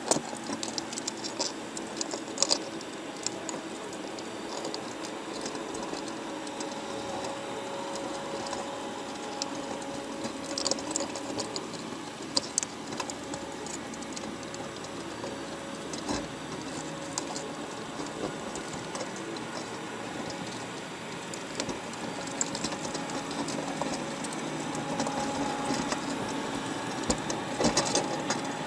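A machine running steadily, with a constant hum and many irregular sharp clicks and rattles.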